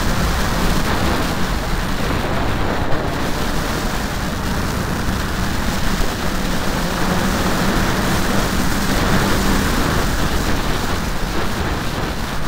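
Dirt bike engine running at speed, largely covered by a steady rush of wind over the microphone. A steady engine note shows through about seven seconds in.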